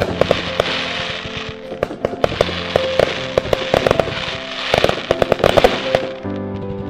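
Aerial fireworks bursting in rapid strings of sharp cracks and crackling, with the densest cluster of bangs about five seconds in. Background music with held notes plays underneath.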